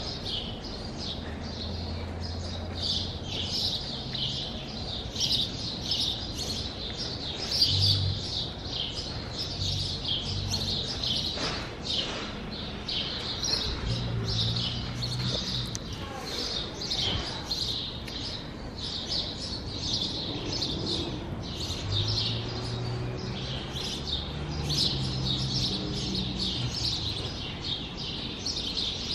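Small birds chirping continuously, many quick high chirps a second, overlapping one another.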